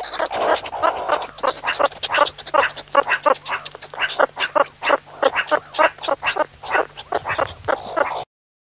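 An animal giving a rapid run of short, sharp calls, several a second, that cuts off suddenly near the end.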